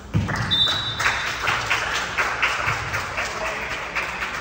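Spectators at a basketball game applauding: a crowd clapping, many quick overlapping claps that start just after the beginning and carry on steadily.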